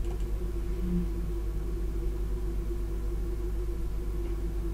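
Steady low hum with a constant tone above it, unchanging throughout and with no other sound standing out.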